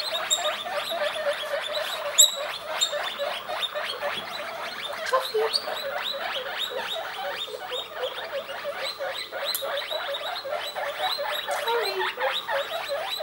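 Baby guinea pigs squeaking, a dense run of short, quick calls, several a second, with no let-up.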